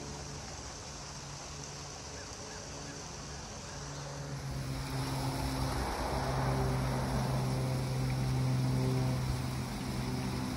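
A motor hums steadily, growing louder about four to five seconds in.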